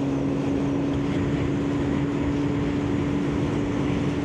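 Kawasaki ZX-9R's inline-four engine running at a steady cruising speed on the move, its note holding one pitch, with wind rush over the bike-mounted microphone.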